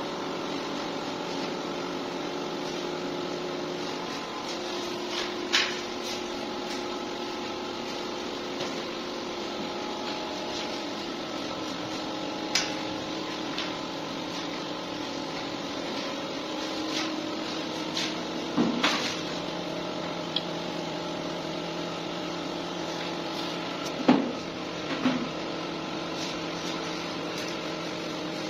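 Steady machine hum with several held tones, broken by a handful of sharp knocks and clicks, the loudest about two-thirds of the way through.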